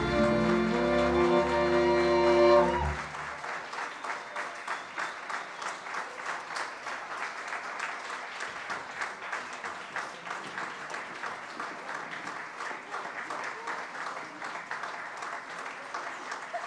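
A Hungarian folk string band led by fiddles ends its dance tune on a held closing chord that cuts off about three seconds in. An audience then applauds steadily.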